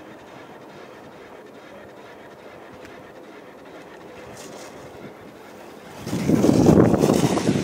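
Low steady outdoor hiss, then about six seconds in a sudden loud, rough rush of wind buffeting the microphone as a skier carves past close by on the snow.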